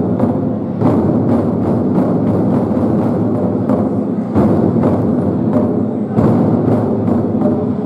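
Ensemble of large Chinese barrel drums played fast and densely, a continuous roll of beats with sharp accented strikes about a second in, near four and a half seconds and near six seconds.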